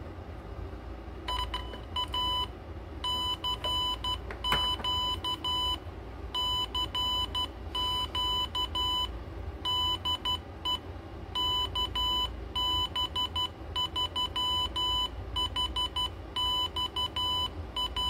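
Arduino Uno sending Morse code through a small 8-ohm speaker: a steady-pitched beep keyed on and off in dots and dashes, spelling the programmed default message of three CQs followed by the call sign. One sharp click about four and a half seconds in.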